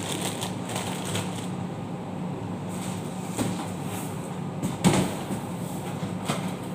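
Cardboard carton being handled and set onto a shelf: light scuffs and clicks, with one sharp knock about five seconds in, over a steady low hum.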